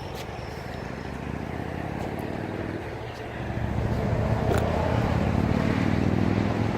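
Low, steady rumble of a motor vehicle engine, growing louder about halfway through.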